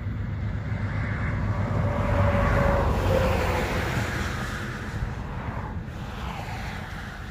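A vehicle passing by on the road: its noise swells to its loudest about two and a half seconds in, then fades away. Under it is a steady low rumble of wind on the microphone.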